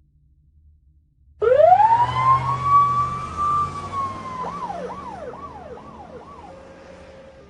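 A siren starts suddenly about a second and a half in. It rises to a high wail and holds it, then breaks into five quick swoops and fades away.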